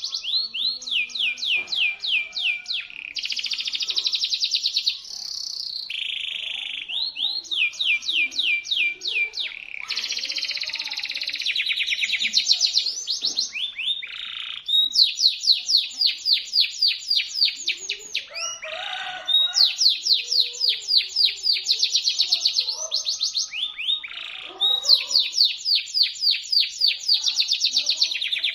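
Domestic canary singing a shrill, sharp song: phrase after phrase of very fast repeated notes, some sweeping up and some down in pitch, with only brief breaks between phrases.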